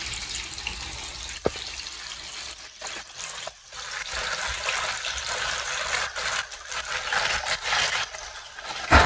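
Hot oil sizzling and crackling as thin round chip slices deep-fry in a pan. The sizzle grows louder about a third of the way in.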